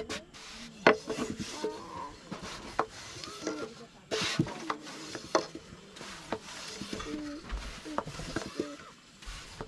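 A long thin wooden rolling pin rolling out thin tiri flatbread dough on a round wooden board, with scrapes and rubbing and several sharp wooden knocks of the pin against the board.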